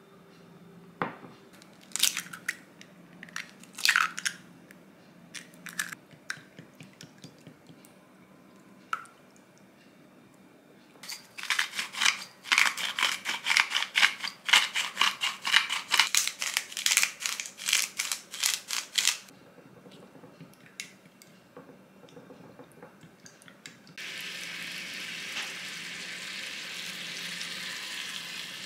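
A few sharp clicks and taps, then about eight seconds of rapid crunching clicks from a hand salt grinder over a bowl of beaten egg. From about 24 seconds in, a steady sizzle as beaten egg hits a hot rectangular egg-roll pan with a little water in it.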